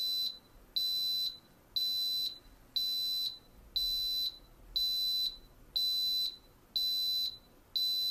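Instant Pot Duo Evo Plus electric pressure cooker sounding its end-of-cycle alert: a high-pitched beep about once a second, each about half a second long, nine in all. The alert marks the end of the pressure-cook countdown and the switch to keep warm.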